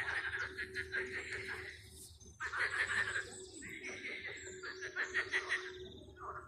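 Chorus of frogs croaking loudly in a small pond: many rapid, pulsed croaks overlapping one another, with a short lull about two seconds in before they pick up again.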